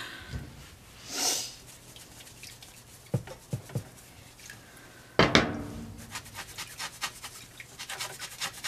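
Hands rubbing and squeezing the wet cloth foot of a doll in a tub of soapy water, scrubbing out a stain. A few small knocks and a louder sudden sound come about five seconds in, then a quick, even run of rubbing strokes.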